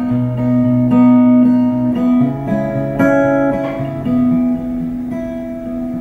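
Background music: plucked acoustic guitar chords, with no singing.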